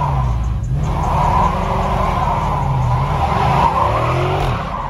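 Dodge Charger SRT8 Super Bee's 392 Hemi V8 revving up and down several times during a burnout, its spinning rear tyres screeching. The noise falls off near the end.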